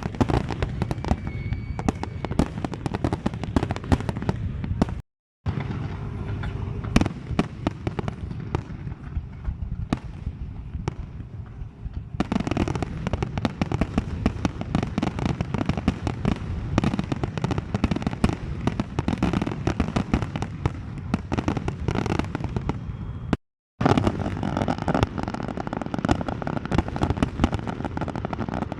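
Fireworks display: a dense, unbroken barrage of bangs and crackling shell bursts. It drops out to silence for a split second twice, about five seconds in and again about twenty-three seconds in.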